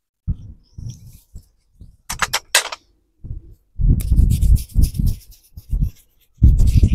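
Hands massaging a man's head, close to the microphone: soft taps at first and a few crisp crackles about two seconds in, then fingers rubbing and scrubbing through his hair from about four seconds, loudest near the end.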